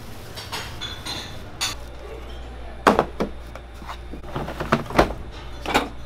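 Plastic crates knocking and clattering as they are stacked and pushed into a refrigerator: several sharp clunks, the loudest about three seconds in and around five seconds, over a low steady hum.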